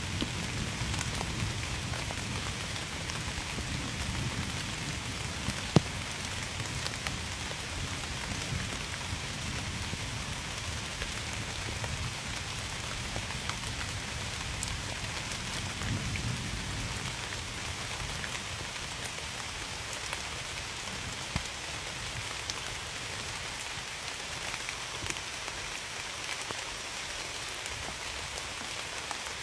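Steady rain falling on a surface, with individual drops clicking sharply now and then, the loudest about six seconds in. Low rumbles swell near the start and again midway, like distant thunder.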